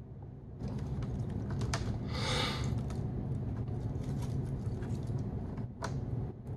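Handling noise of a self-adhesive LED strip being peeled and pressed into place: scattered light clicks and rustles, with a short hissing peel about two seconds in, over a low steady hum.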